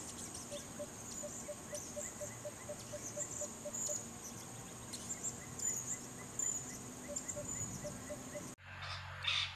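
Tropical forest ambience: a steady high-pitched insect drone with scattered chirps, and a regular series of short low notes at about four a second. Near the end the background cuts off abruptly and a brief rustle follows.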